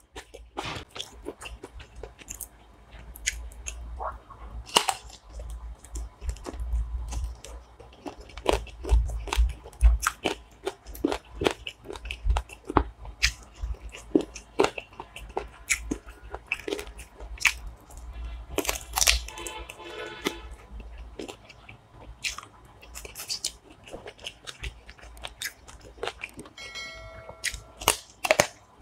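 Close-miked chewing and crunching of chicken curry and rice eaten by hand, with many sharp irregular mouth clicks.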